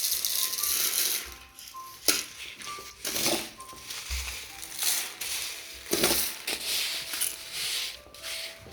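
Small stones clattering and rustling in several bursts as they are scooped and poured into a heap.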